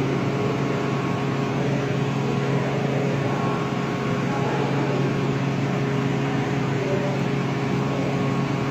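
A steady low machine hum, like a ventilation fan or air handler, running evenly without change.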